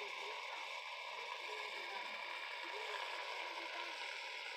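Aerosol can of shaving foam spraying with a steady hiss, adding foam to the slime mixture.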